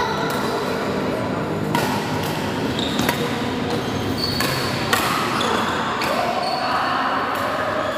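Badminton rally: rackets strike the shuttlecock four times, about every one to two seconds, with short high squeaks of shoes on the court and faint voices.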